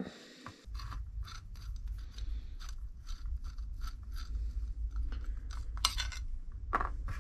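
A hex key and small metal parts clicking and scraping as the axle plate and torque arm are unscrewed and lifted off a Rohloff Speedhub by hand, with a steady low rumble underneath.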